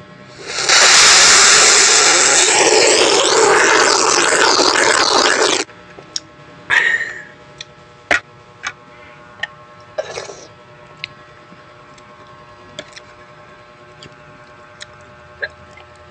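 A loud rushing hiss right at the microphone for about five seconds, cutting off suddenly. Then a metal spoon clicks and taps lightly against a plate now and then.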